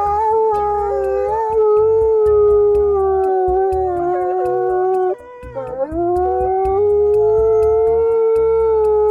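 An animal howling: one long, steady howl, then a break just after five seconds and a second howl that slides up in pitch and holds.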